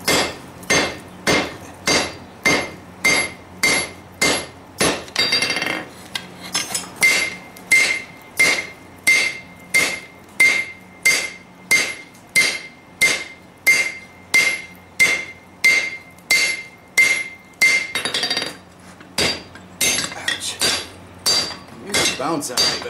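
Hand hammer striking hot lawn mower blade steel on an anvil at a steady pace of about two blows a second, with a brief pause about six seconds in and a looser run near the end. Through the middle stretch each blow leaves the anvil ringing with a clear high note. The steel is stiff and moving hard under the hammer.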